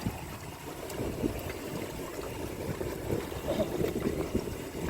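On-board ambience of a fishing boat: a steady low rumble with water sloshing against the hull.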